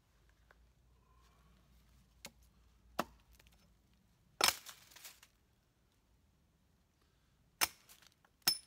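Hatchet chopping into a wooden pole to trim it: a handful of sharp, irregular strikes on wood, the loudest about four and a half seconds in followed by a few lighter ones, and two more near the end.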